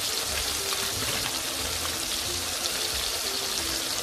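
Prawns and green pepper simmering in the watery liquid in a non-stick pan: a steady sizzling bubble, the water not yet cooked off.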